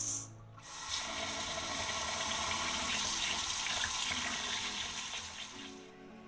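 Tap water running into a stainless-steel bowl of rice as hands rinse and swish the grains. The water starts about a second in, runs steadily, and fades out near the end.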